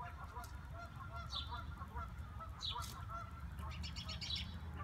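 Birds calling outdoors: a rapid run of short repeated calls, with a higher downward chirp about every second and a half and a quick trill near the end, over a low steady rumble.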